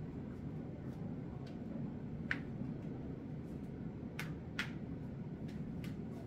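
Quiet room tone with a steady low hum, broken by a few small sharp clicks: one about two seconds in, two close together past four seconds, and a fainter one near the end.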